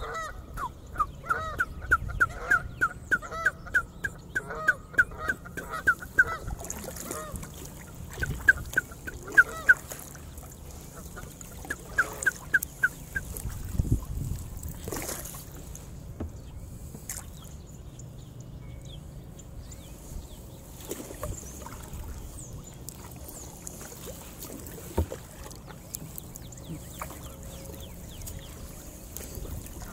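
A goose honking in quick runs of calls, about three to four honks a second, in three bouts during the first half.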